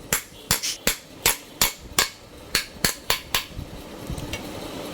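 A hammer tapping a new ball bearing into a ceiling fan's bearing seat, about ten sharp metallic strikes at roughly three a second that stop about three and a half seconds in. The seat is worn and has been packed with cloth so the bearing sits tight and the fan's noise does not return.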